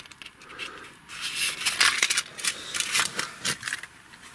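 Small firework packages being handled: irregular quick rustles, light clicks and taps of packaging being picked up and moved about.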